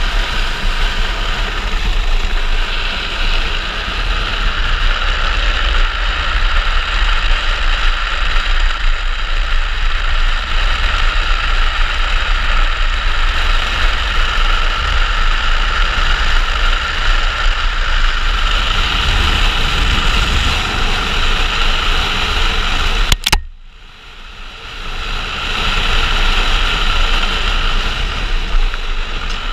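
Wind rush and road noise on a helmet camera as a gravity speed trike rolls fast down an asphalt road: a loud, steady rushing with a deep rumble. Near the end, after a click, the noise drops away for a second or two and then builds back up.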